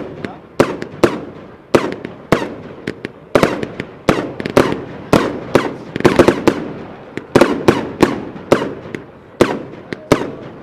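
Royal Fireworks 'Garden of Eden' firework cake firing shot after shot: a rapid series of sharp, heavy bangs, about one to two a second, each trailing off in a short echo.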